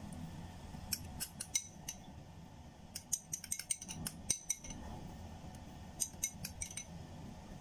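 Metal spoon clinking and scraping against ceramic dishes while spooning garlic chilli sauce, in three quick clusters of light taps.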